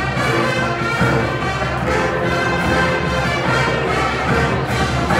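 Marching band playing a brass-led arrangement, with sousaphones among the horns.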